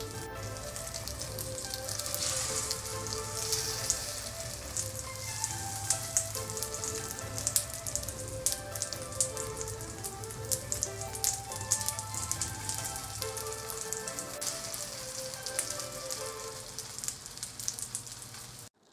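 Slices of nian gao (Chinese New Year glutinous rice cake) pan-frying in hot oil: a steady sizzle with many small crackling pops, over soft background music. The sound cuts off suddenly near the end.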